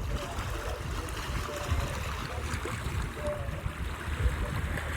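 Sea water washing and lapping at the shore, a steady rush, with gusty wind rumbling on the microphone.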